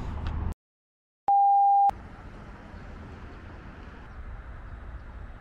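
A single steady electronic beep, one clear mid-pitched tone lasting about half a second, sounding about a second in right after a short gap of dead silence, followed by low steady background noise.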